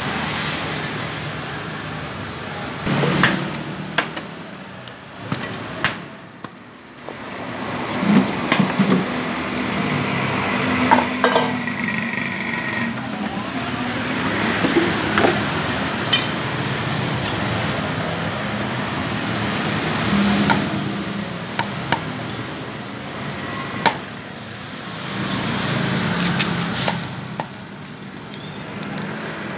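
Irregular sharp knocks of a cleaver striking catfish on a wooden chopping stump, over steady background noise.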